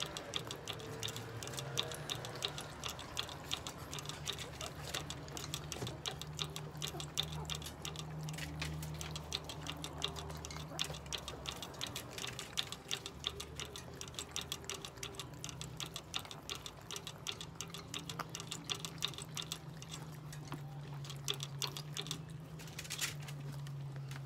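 A Chihuahua licking at the ball-valve nozzle of a hanging water bottle, a rapid run of small clicks that keeps up throughout. A low steady hum lies underneath, and a brief louder rustle comes near the end.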